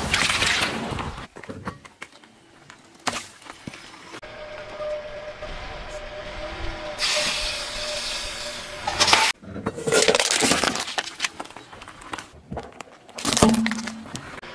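A car tyre rolls over and crushes a series of objects on asphalt: water beads, a packaged sausage and a small plastic toy bus. Each is heard as a separate burst of squishing, crunching or cracking, with a sharp crack near the end.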